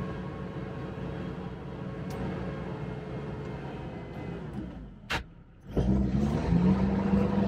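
Sherp amphibious ATV's diesel engine running, heard from inside the cab. Its note sinks, drops away briefly with a single click about five seconds in, then rises to a higher, louder steady note.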